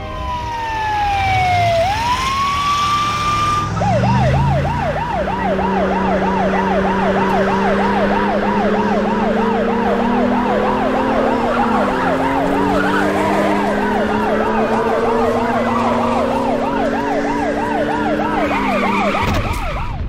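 Emergency-vehicle sirens: a wail that falls and then rises again, switching about four seconds in to a fast yelp that cycles about three times a second, with lower sliding tones layered beneath it. The sirens cut off at the end.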